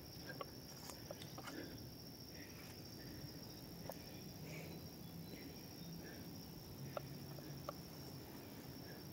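Insects droning steadily at a high pitch, with a few faint clicks and rustles scattered through.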